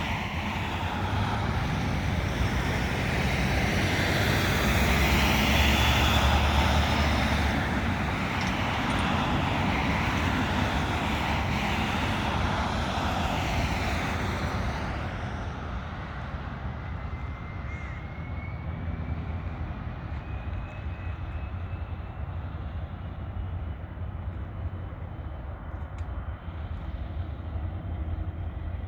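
Gulfstream III business jet's two Rolls-Royce Spey turbofans at takeoff power, loudest about six seconds in, then fading and going duller as the jet climbs away.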